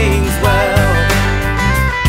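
Country-style break music with guitar, held notes over a steady bass.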